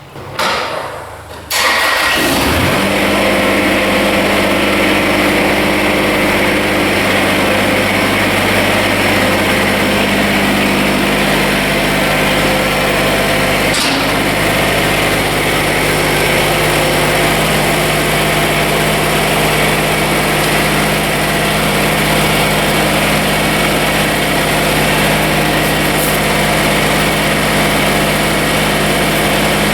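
Kubota BX24 compact tractor's three-cylinder diesel engine starting, catching about a second and a half in, then running steadily. Its engine note shifts in pitch roughly eleven seconds in.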